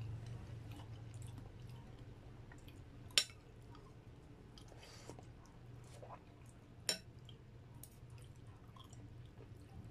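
Close-up chewing of soft noodles with small wet mouth clicks, over a steady low hum. A metal utensil clinks sharply against the glass bowl twice, about three seconds in and again about seven seconds in.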